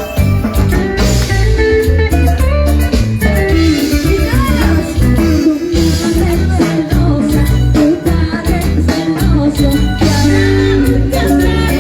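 Loud Latin American music: a singing voice over plucked guitar, percussion and a heavy bass beat.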